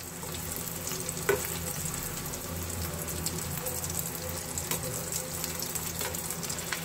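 Breadcrumb-coated paneer nuggets deep-frying in hot oil: a steady sizzle full of fine crackling. A few light clicks come through as a slotted metal skimmer turns the nuggets over.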